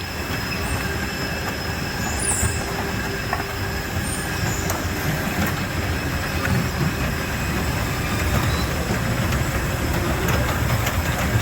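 Steady rumble of ground equipment and jet engines on an airport apron beside a parked Boeing 747-400 being loaded, with a couple of brief high squeaks about two and four seconds in.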